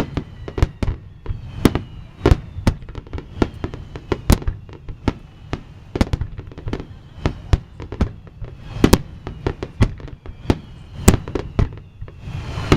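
Aerial fireworks bursting in rapid, uneven succession, several sharp bangs a second over a low rumble, with faint falling whistles among them.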